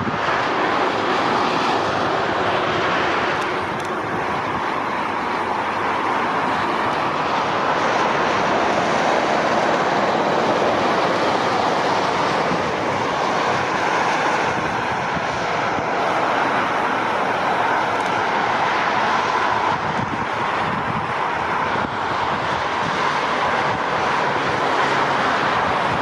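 Steady motorway traffic noise: the rush of tyres and engines of cars and double-decker coaches passing on a multi-lane highway.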